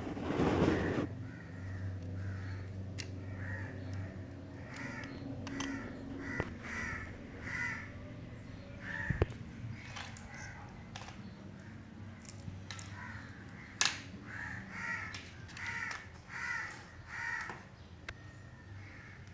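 A bird calling over and over in short calls of about a third of a second each, coming in runs of two to four. Between them come scattered sharp clicks and knocks from the laptop motherboard and its small WiFi-card board being handled, with a brief loud rustling burst in the first second.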